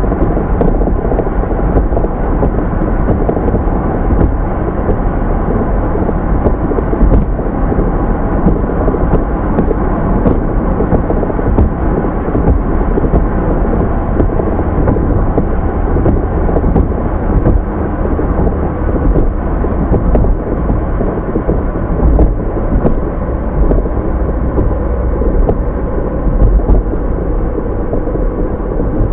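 Car on the move: a steady, loud low rumble of road and engine noise picked up by a dashcam microphone.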